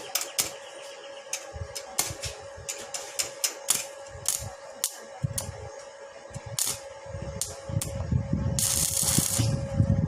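A rapid, irregular series of sharp mechanical clicks and taps over a steady faint hum, with a brief hiss about nine seconds in.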